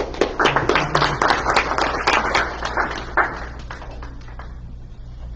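Audience applauding, with many separate claps. It comes in at once, stays dense for about three seconds, then thins out and dies away about four seconds in.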